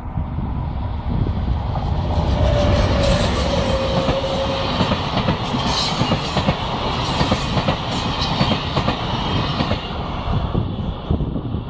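Passenger train of Schlieren coaches hauled by a Siemens Taurus electric locomotive passing close by: a steady rolling rumble with wheels clacking over the rail joints, and a brief high whine about two to four seconds in.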